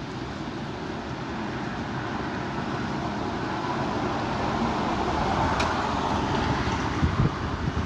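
Strong wind gusting and buffeting the microphone as a steady rush that swells in the middle, with a few low thumps near the end.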